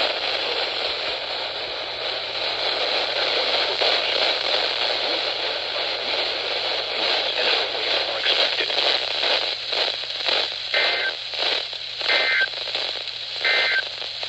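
Weather-radio receiver hissing with static from a weak signal, turning choppy about halfway through. Three short two-note beeps come near the end, about a second and a half apart.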